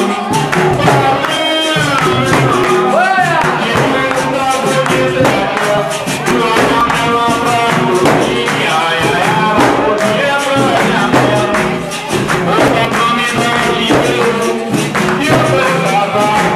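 Capoeira roda music: berimbau, atabaque drum and pandeiros played in a steady rhythm, with group singing.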